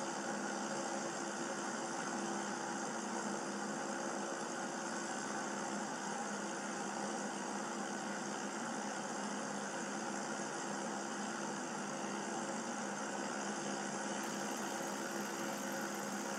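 Clockwork motor of a Gabriel Chutes Away toy game whirring steadily as it turns the wound-up game board, a continuous mechanical drone with a low hum.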